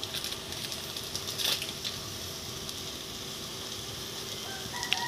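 Ground pork frying with a steady sizzle in a stainless steel pot, with a few scrapes of a wooden spoon stirring it in the first two seconds and a sharp click near the end.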